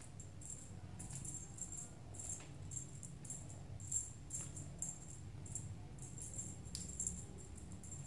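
Small jingle bell shaken in quick, irregular jingles, several a second, with the sharpest jingles about four and seven seconds in. A low steady hum runs underneath.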